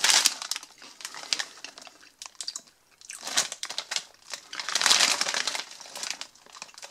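Plastic chip bag crinkling as it is handled and turned over in the hands, in uneven bursts with a short lull about two seconds in.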